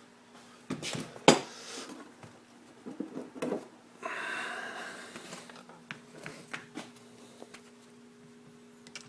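Clicks and knocks of an old air impact wrench and its air-hose fittings being handled, the loudest about a second in, with a short hiss of compressed air about four seconds in that fades out.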